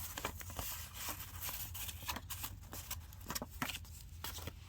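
Paper rustling with light taps and clicks, as old greeting cards are handled.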